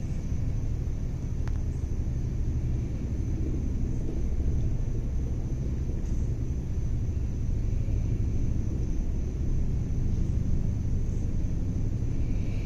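Steady low outdoor rumble, with a thin steady high-pitched hum above it and a single faint click about a second and a half in.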